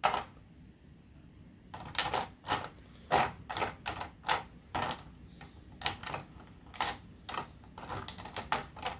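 Hard plastic pieces of an action-figure display base and its peg clicking and tapping together as they are handled. It is a run of irregular sharp clicks, about two a second, as the peg is pushed at the base and will not go back in.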